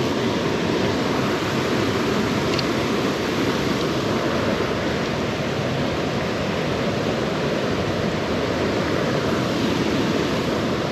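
Mountain trout stream rushing over rocks and small rapids close by: a steady, even rush of water.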